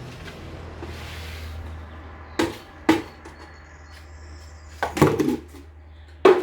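Things being handled and set down: two sharp knocks a little over two seconds in, a longer clatter about five seconds in, and one more knock near the end, over a steady low hum.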